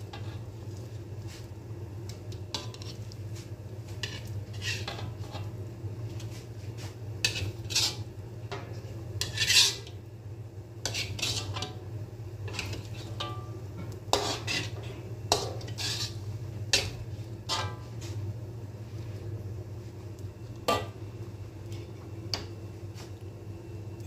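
Metal spatula scraping and clanking against a metal wok as stir-fried noodles are pushed out into a glass bowl: irregular scrapes and knocks, the loudest about nine and a half seconds in.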